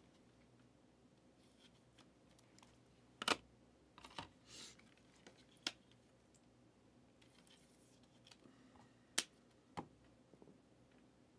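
A few sharp clicks and taps of trading cards and hard plastic card holders being handled and set down on a table, the loudest about a third of the way in and near the end.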